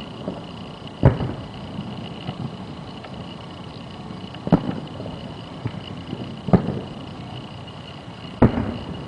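Distant fireworks shells bursting about three miles away: four separate sharp booms, a few seconds apart, each trailing off in a short low rumble.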